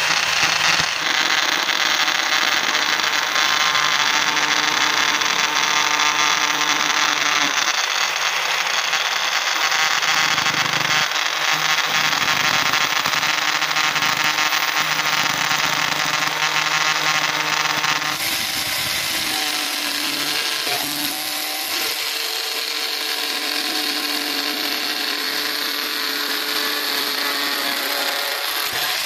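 Electric angle grinder spinning a home-made paper cutting disc and cutting through cardboard with a steady, loud running noise. About two-thirds of the way through the sound changes and loses its low hum.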